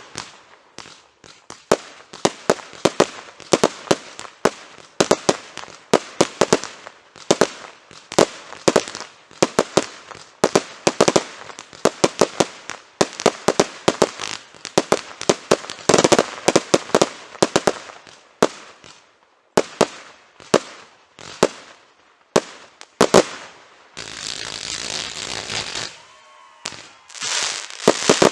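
Fireworks display: a rapid barrage of aerial shell bursts, several bangs a second, then a couple of seconds of steady crackling near the end.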